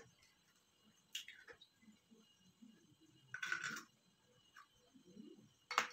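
Eggs being cracked with a knife: a few sharp taps of the blade on the shell, one about a second in and one near the end, and a short crackle about three and a half seconds in as a shell is broken open over the bowl.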